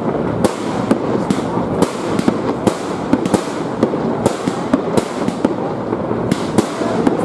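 Aerial fireworks going off overhead: sharp bangs, roughly two a second, over continuous crackling from bursting stars.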